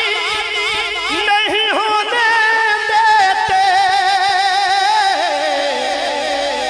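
A man singing a naat solo into a microphone. He sings a long melismatic phrase with no words: quick ornamented turns first, then a long held note with vibrato that slides down in pitch near the end.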